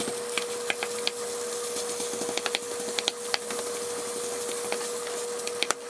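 Raw ground beef frying on onions and bell peppers in a hot skillet, with a steady sizzle. A spatula scrapes and taps the pan at irregular moments as it breaks the meat apart.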